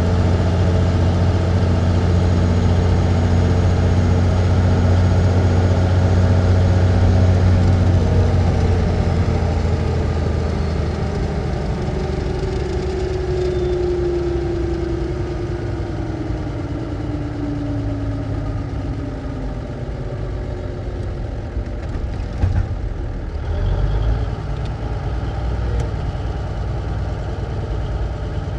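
1954 big rig truck engine running steadily, then easing off about eight seconds in, with a falling whine as it slows. A few short knocks come a little after twenty seconds.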